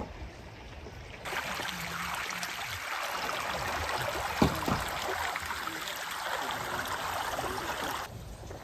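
Rushing water of a cascading mountain stream, a steady dense hiss that starts suddenly about a second in and cuts off near the end, with one sharp knock about halfway through.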